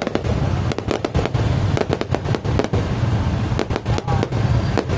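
Fireworks display: many sharp, irregular bangs and cracks in quick succession over a continuous low rumble.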